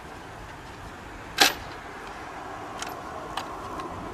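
One sharp snap about a second and a half in, then a few fainter ticks: a white plastic pipe clip snapping onto the steel axle of a homemade canoe trolley.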